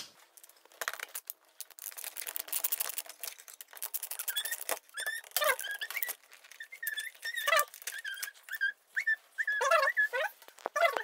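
Window blind headrail clicking and rattling as it is unhooked from its brackets, then a run of short, high squeaks while the bracket screws are turned out with a screwdriver.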